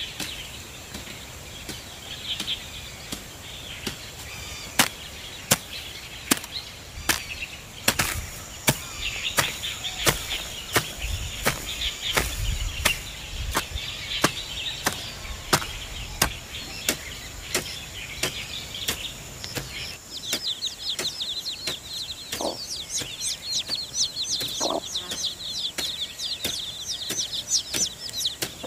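Hoe blade chopping into garden soil in irregular strikes, roughly one or two a second, with small birds chirping. About two-thirds of the way in the strikes stop and chicks peep busily, with a couple of low clucks from a hen.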